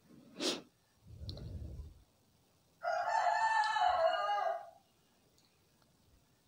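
A rooster crowing once, a single crow of about two seconds near the middle, after a couple of faint brief noises.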